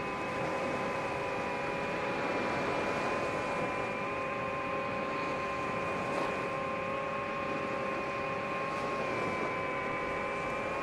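DJI FPV drone's motors and propellers running at a steady cruise: an even whine of several held tones over a rushing hiss.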